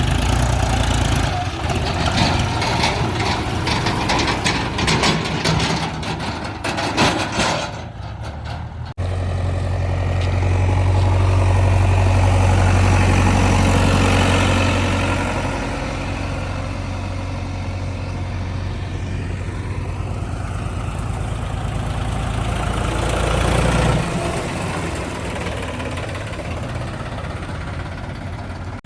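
Heavy diesel machinery engines running, with a busy clatter of knocks over the first several seconds. An abrupt change about nine seconds in leaves a steady low engine note that swells for a few seconds, then settles.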